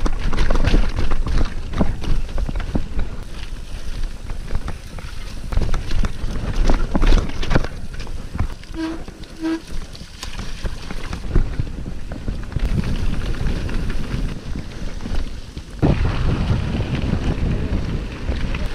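Mountain bike rattling and knocking over rocky singletrack, tyres crunching on rock, with wind buffeting the microphone. Two short beeps near the middle. Near the end the knocks give way to a steadier rush of wind as the ride moves onto smooth dirt road.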